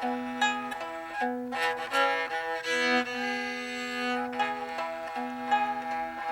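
Gourd fiddle, a gourd-bodied four-string fiddle tuned below standard pitch in calico tuning, bowed in old-time style. It plays a quick melody while a second string drones underneath.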